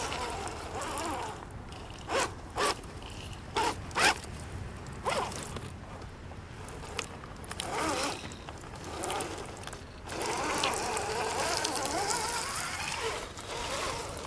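Radio-controlled 4x4 truck's electric motor and drivetrain whining in short throttle bursts as it works through mud. There are five sharp blips between about two and five seconds in, then a longer whine that rises and falls in pitch.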